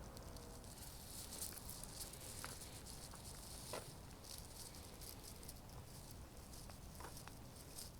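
Faint patter of light rain, with a few sharper drips standing out from a fine hiss of drops.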